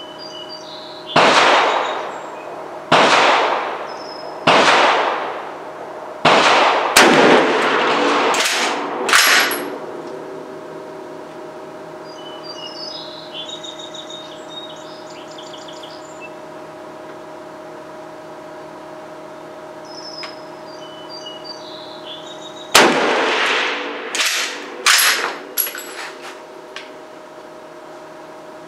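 Rifle shots at an outdoor range: a quick string of about seven sharp reports in the first ten seconds, then a second string of three or four from about 23 seconds in, each with a short trailing echo.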